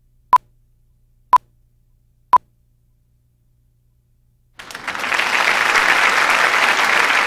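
Three short beeps of one steady tone, one a second, from the slate leader of a video master tape. After a couple of seconds of silence, audience applause fades in and carries on.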